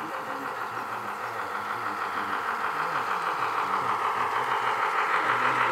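G-scale model diesel switcher hauling freight cars on garden railway track: a steady mechanical running sound of motor, gearing and wheels on rail, with a fast even pulsing, growing louder as the train comes closer.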